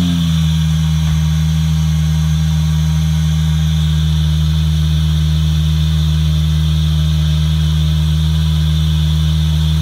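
Car engine idling steadily, a loud, even low hum just after starting up.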